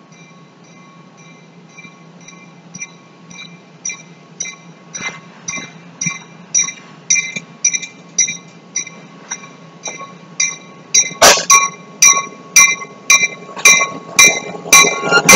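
Diesel locomotive's bell ringing about twice a second, the strikes growing steadily louder as the locomotive approaches until they are loud near the end, over a faint low engine rumble.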